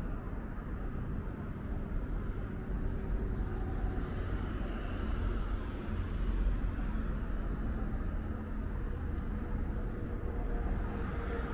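Steady city road traffic: cars and other vehicles passing on a multi-lane street, a continuous low rumble with tyre noise.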